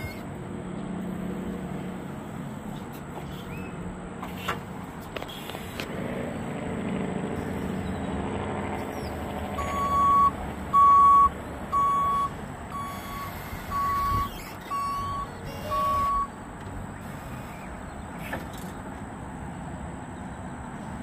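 Forklift running, its engine humming, then its reversing alarm beeping seven times, about once a second, as it backs up.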